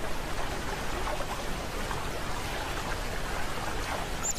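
Shallow river water running and splashing in a steady rush.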